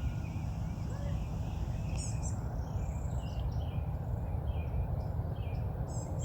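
Birds chirping and calling, with short calls repeated many times and quick runs of high chirps about two seconds in and near the end, over a steady low rumble.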